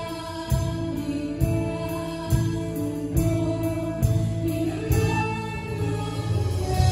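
A praise band playing a Tagalog worship song: drums striking a steady beat a little under once a second under guitars, bass and keyboard, with sung vocals.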